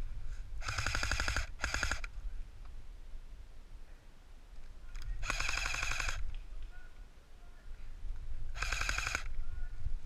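Airsoft electric M14 rifle firing full-auto in four short bursts, the first two close together. Each burst is a rapid run of ticks over the whine of the gearbox.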